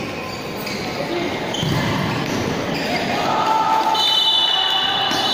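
Futsal game sounds: the ball thudding and crowd voices shouting and chattering. From about four seconds in, a steady high-pitched whistling tone joins.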